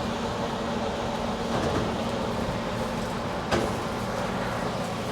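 Combine harvester engine running steadily with a low hum. A single sharp knock comes about three and a half seconds in.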